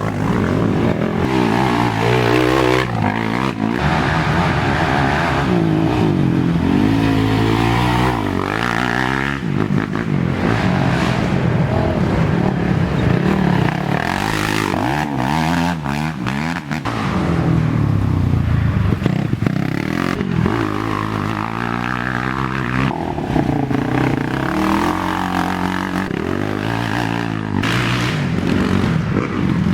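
Racing ATV engines revving hard, the pitch climbing and dropping again and again as the quads accelerate, shift and pass by.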